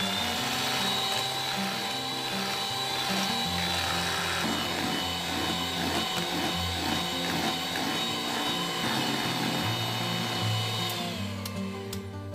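Electric hand mixer running with a steady motor whine, its beaters whipping eggs and sugar into a thick, pale foam close to the ribbon stage. Near the end the whine drops in pitch and stops as the mixer is switched off. Background music plays underneath.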